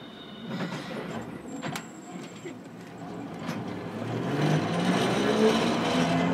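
Hiroden 700-series tram, car 703, running. At first it is fairly quiet with a few sharp clicks. From about four seconds in, the traction motors whine louder and rise in pitch as the tram accelerates.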